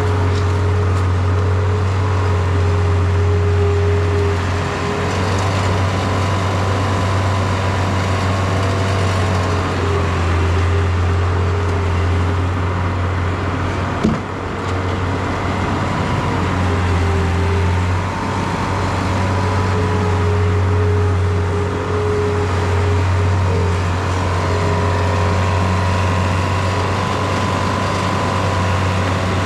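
John Deere 675B skid steer's diesel engine running steadily, with a whine that comes and goes above the engine note, likely from the hydraulics as it works. A single sharp click about halfway through.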